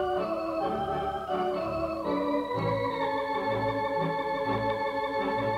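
Organ music: held chords that change every second or so over a pulsing bass line.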